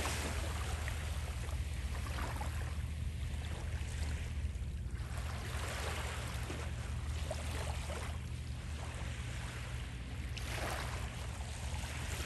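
Small waves washing onto a beach, the hiss swelling and fading every few seconds, over a steady low rumble of wind on the microphone.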